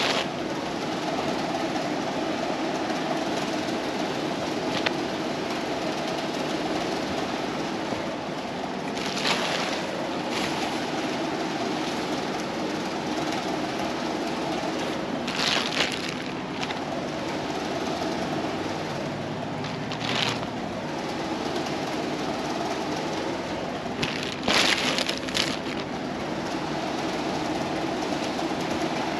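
Clothing and a plastic trash bag rustling and crinkling as garments are picked up and handled, in several short bursts, over a steady background hum.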